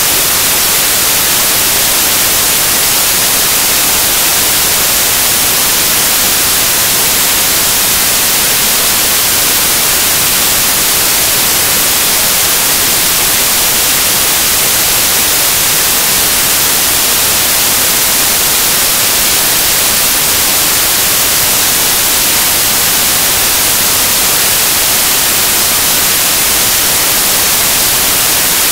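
Loud, steady static hiss, strongest in the highs, with no other sound in it: the noise of a corrupted or dropped-out recording.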